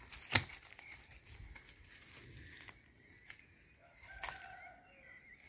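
Footsteps and rustling of leaves and twigs as a person walks through low undergrowth, with a sharp knock just after the start and another about four seconds in. Faint bird chirps in the background.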